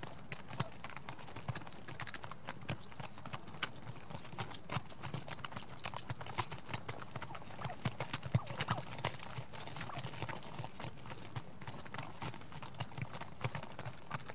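Wild turkeys pecking scattered corn off packed snow close to the microphone: many quick, irregular taps and clicks, several a second.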